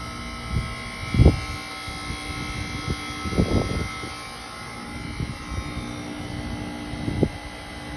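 2002 Arcoaire heat pump outdoor unit running with a steady mechanical hum made of several fixed tones. Irregular low rumbling bumps come and go over it, the loudest about a second in and again after three seconds.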